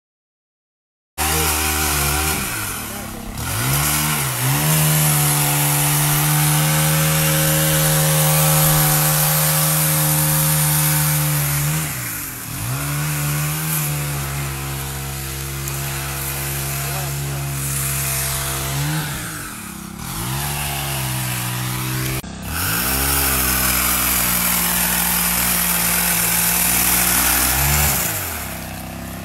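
Small gas engine of a pole saw running at high revs, easing off and revving back up several times as limbs are cut.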